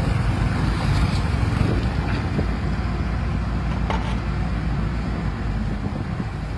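Excavator's diesel engine running steadily, a low rumble, with a few faint knocks.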